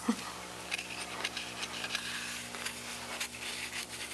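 Faint scattered taps and clicks of apples and a pastry brush being handled over a metal baking pan while lemon juice is brushed on, over a steady low hum.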